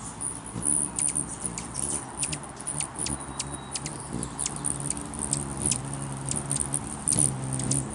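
Rufous hummingbirds chipping and chattering, a scatter of sharp, high squeaky chips several times a second, over the low hum of their wings as they hover and squabble around the feeder.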